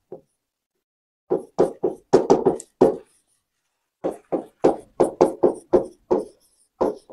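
Pen strokes knocking against an interactive display's screen while handwriting: a quick run of short knocks about a second in, then a second run from about four seconds in.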